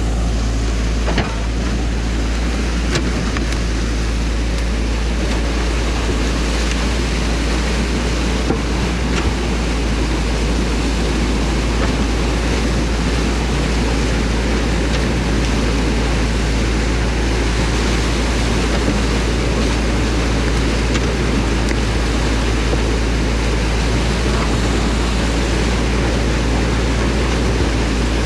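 Excavator's diesel engine running steadily under a constant rushing noise, with a few light knocks.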